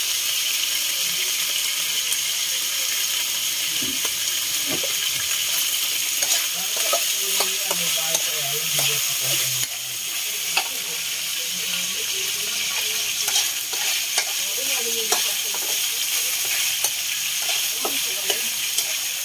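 Pork cubes sizzling in hot oil in a wok as they brown, with a steady hiss. A metal spoon stirs them, and its scrapes and clicks against the pan come often from about six seconds in.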